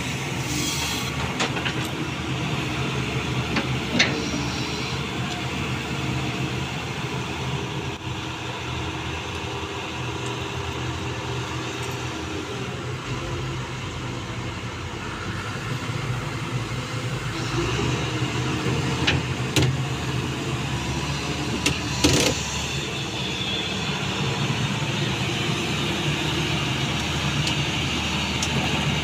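Caterpillar 320D2 tracked excavator's diesel engine running steadily, with a few sharp knocks about four seconds in and again twice near the 20-second mark.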